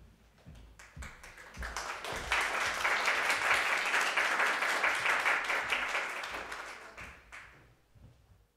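Audience applause that swells as a young pianist comes on stage and bows, then dies away near the end. A few footsteps on the wooden stage floor are heard at the start.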